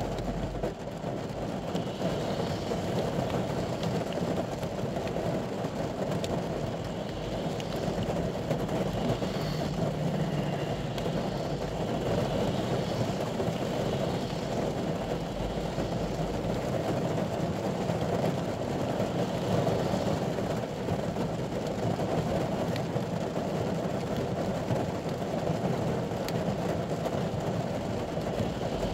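Rain falling on a ute's roof and windscreen, heard from inside the cab as a steady hiss.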